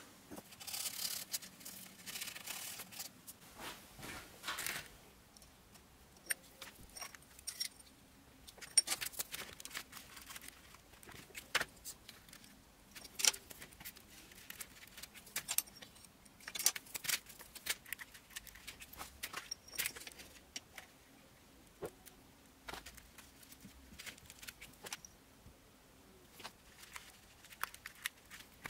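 Irregular light metallic clinks and taps as steel vise jaws, screws and small tools are handled, mixed with short scratchy marker strokes on paper. The clatter is densest in the first few seconds.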